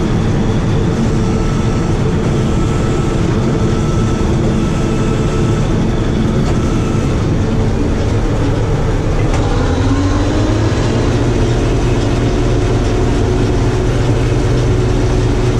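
Bizon combine harvester's diesel engine running steadily, heard from inside the cab with the header and reel driven. About ten seconds in, a tone rises in pitch and settles higher.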